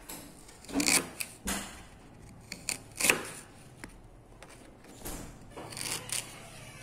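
Kitchen knife slicing through peeled fresh ginger root onto a plastic cutting board: a string of short, crisp cuts and taps at an irregular pace.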